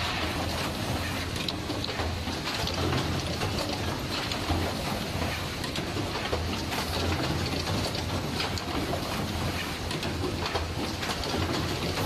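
Automatic wire-crimping and plug-insertion machine running: a dense, steady mechanical clatter of many irregular clicks and knocks over a low hum.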